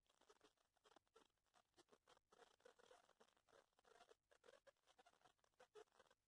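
Near silence, with faint, irregular small clicks and rustles.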